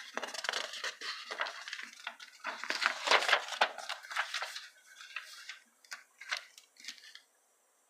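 Irregular rustling and crackling with scattered clicks, starting and stopping in short spells.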